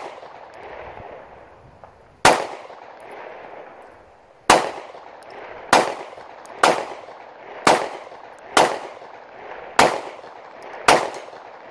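Eight shots from a 9mm Polymer80 Glock 26-style subcompact pistol, each crack trailed by a short echo. The first few come about two seconds apart, then roughly one a second. The pistol cycles through the extended ETS magazine without a malfunction.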